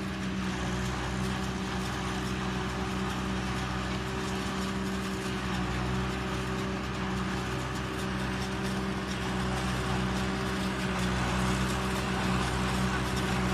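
Tractor engine running steadily under load as it drives an offset tractor-mounted corn silage forage harvester chopping standing corn: a low, even engine drone with a noisy whir over it, growing a little louder near the end.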